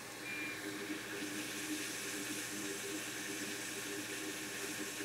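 Hot air rework station blowing a steady hiss of air from its nozzle, switched on and coming up to temperature to lift a blown backlight fuse off the logic board. The hiss grows louder about half a second in, with a short high tone near the start and a faint hum underneath.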